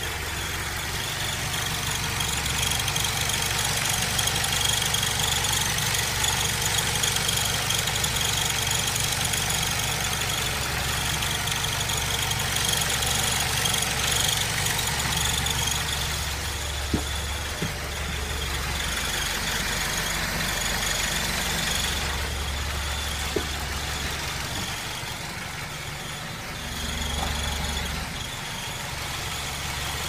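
Mazda 6 (GG) engine idling with a steady high-pitched whistle above the engine note. The owner traces the whistle to the exhaust manifold side and does not know its cause.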